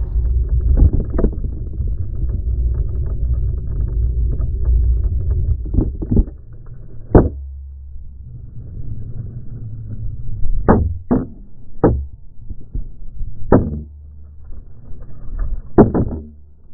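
Muffled low rumble picked up by a GoPro in its housing after it has fallen off its failed mount onto the road, broken by several sharp knocks. The rumble drops away about six seconds in.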